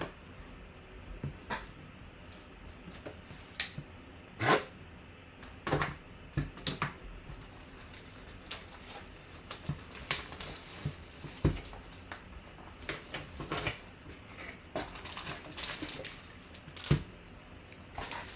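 Hands handling a small cardboard trading-card box and a foil-wrapped card pack: scattered taps, scrapes and rustles, with a few sharper knocks.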